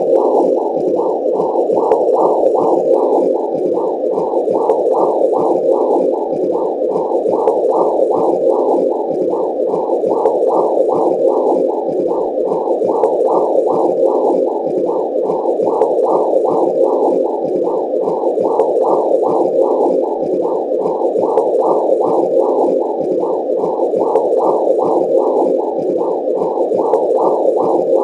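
Womb sound for soothing a baby: a steady, muffled whooshing noise that pulses evenly, about two pulses a second, like the rhythmic blood-flow whoosh heard inside the womb.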